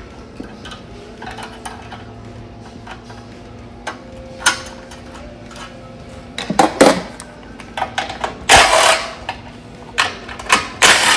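Hand tools clinking and knocking on a small engine's linkage, then a yellow cordless power driver running in short bursts near the end, unfastening the throttle linkage hardware.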